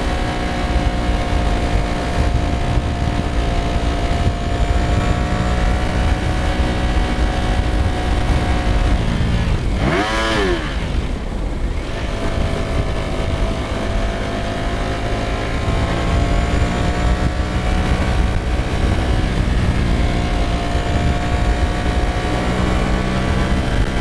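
Ducati Streetfighter V4S's 1103 cc Desmosedici Stradale V4 running steadily under way on the road. Around the middle, the engine note drops sharply and climbs back within about a second and a half, then holds steady again.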